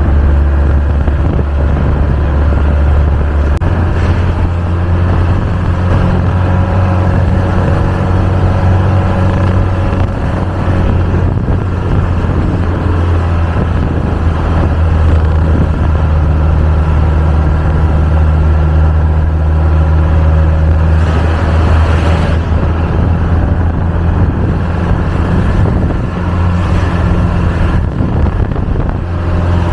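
Minibus engine running steadily as it climbs a mountain road, a deep drone that steps up a few seconds in.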